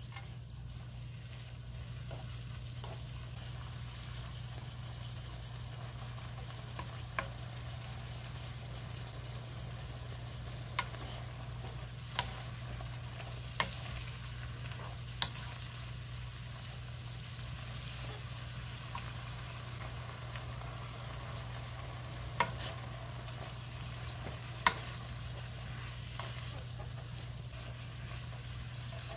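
Soybean sprouts and vegetables sizzling as they are stir-fried in a non-stick pan, stirred with a wooden spatula that knocks sharply against the pan several times, at uneven intervals. A steady low hum runs underneath.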